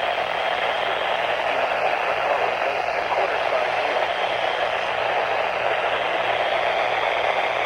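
Steady radio static hiss from a NOAA weather radio receiver on a weak or empty signal, with a low steady hum underneath.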